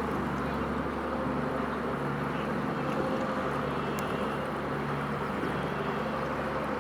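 Steady low engine drone with a constant rushing noise over it, even in level throughout.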